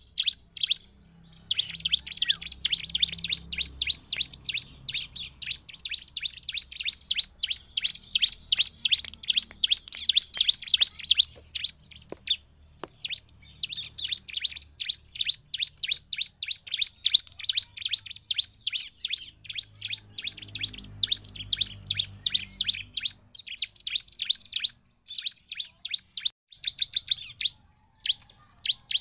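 Bar-winged prinia (ciblek) singing a fast, nearly unbroken string of sharp, high chirps. It pauses briefly about a second in and a few times near the end.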